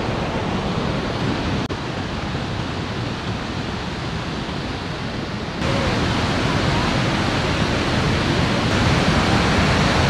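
Steady rushing of a fast mountain stream and waterfall, a dense unbroken roar of water that gets louder about halfway through.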